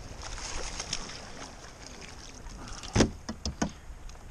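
Water streaming and dripping from a landing net as it is lifted out of the sea. About three seconds in comes a loud knock, followed by a few lighter knocks, as the net and fish come aboard the plastic kayak.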